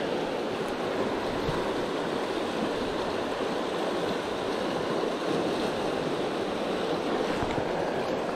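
Steady rush of a fast, high-running river flowing through riffles and whitewater.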